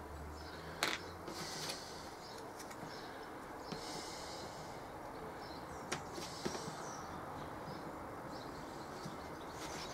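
A few light clicks and taps as small card kit pieces and a paintbrush are handled on a work table, the sharpest about a second in, over a faint steady background.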